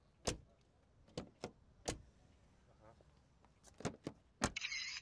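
A Mercedes-Benz sedan's rear door being opened and shut again and again: a series of sharp latch clicks and door thuds. Near the end comes a short camera-shutter-like notification sound from a phone.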